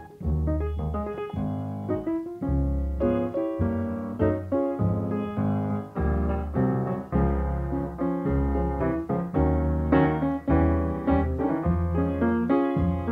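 Jazz piano playing a blues. The left hand keeps a steady beat of low bass notes alternating with chords, about two a second, under the right-hand melody.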